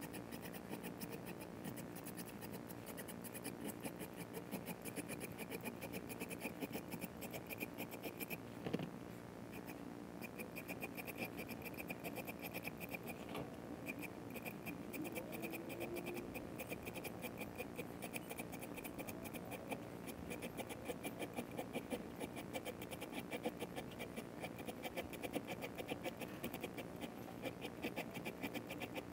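Small hand files scraping across the ends of stainless steel frets, in quick short strokes one after another, as the fret ends are shaped and rounded. A single light knock about nine seconds in.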